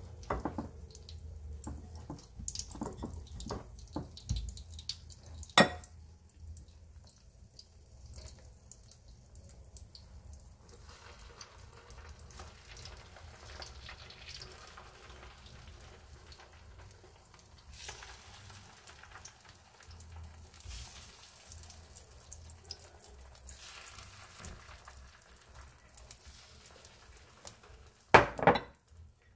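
Egg-dipped seafood and mushroom pancake pieces sizzling in oil in a non-stick grill pan, with scattered light clicks as pieces go in. A sharp knock comes at about six seconds, and two loud clatters come near the end.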